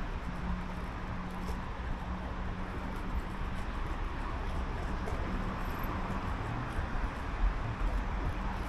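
Street ambience: a steady hum of road traffic with engine drone underneath.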